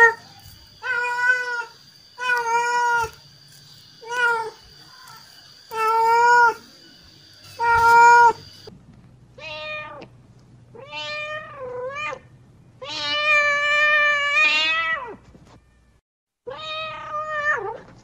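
Mother cat meowing over and over, calling for her kittens: short meows every second or two, then after about nine seconds longer, drawn-out meows, one held about two seconds.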